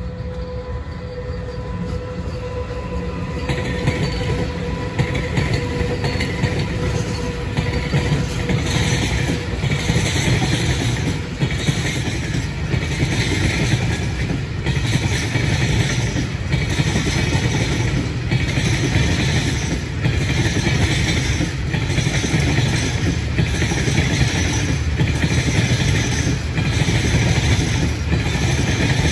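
Freight train of flat and container wagons rolling past, hauled by two electric locomotives, with a steady low rumble and a rhythmic clatter of wheels about every second and a half. A steady whine heard at first fades out within the first ten seconds as the locomotives move away.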